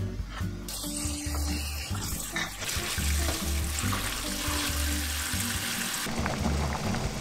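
Tap water running onto soybean sprouts in a metal colander in a sink as a hand rinses them, over light background music. The running water cuts off about six seconds in.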